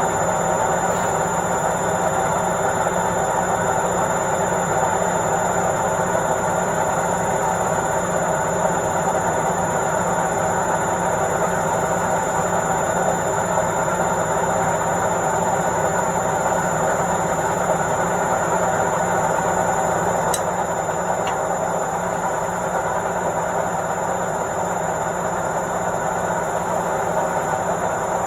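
Washing machine drum spinning at full speed in the spin cycle: a steady, even whirring rumble with a thin high whine, a single faint click about twenty seconds in.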